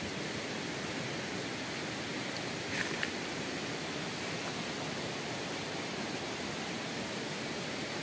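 Steady rush of water from a rocky forest stream, with a brief faint click about three seconds in.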